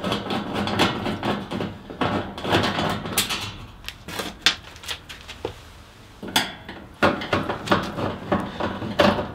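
A screwdriver working loose the screws under a storage heater's sheet-steel front cover: irregular metallic clicks, scrapes and light knocks. There is a quieter spell in the middle, then the clicking picks up again.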